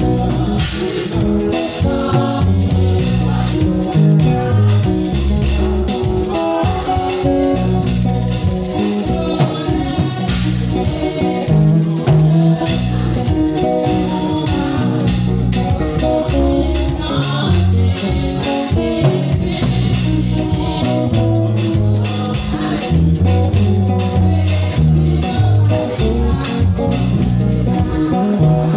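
Live band playing a kompa groove: an electric bass guitar walks through the low notes over a drum kit with busy cymbal and hi-hat hits, and a keyboard plays along.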